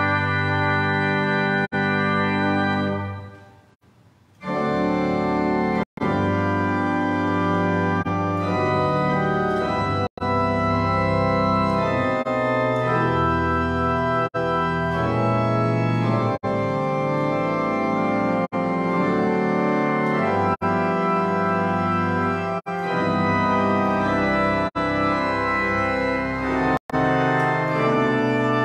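Church organ playing sustained chords. The sound cuts out for an instant every couple of seconds and sinks nearly to silence for about a second around three to four seconds in: glitches from a faulty recording device.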